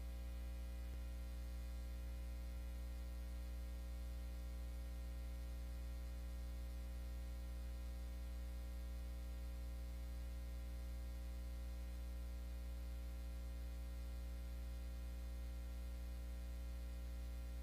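Steady low electrical hum with a stack of fainter overtones and a faint hiss, unchanging throughout.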